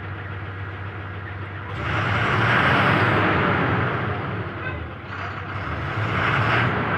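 Ashok Leyland truck's diesel engine running at idle, now starting after its no-start wiring fault was repaired. Twice it gets louder, with a broad rush of noise, for a second or two at a time.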